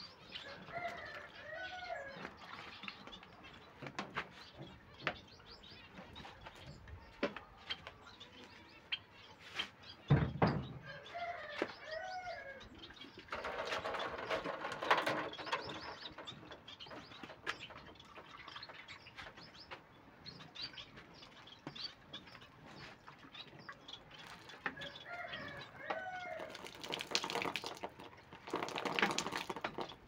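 Caged finches chirping, one short song phrase coming back about every ten seconds, among light clicks and fluttering, with a single thump about ten seconds in. Twice, for about three seconds each, water shaken from a plastic bottle patters down over the wire cages as a shower for the birds.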